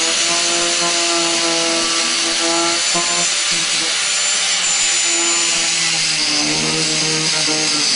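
Electric angle grinder running at full speed, its disc grinding into the keel of a plastic kayak to wear a hole through it, a steady whine with a rasping grind. The note shifts a little about six seconds in as the disc works deeper.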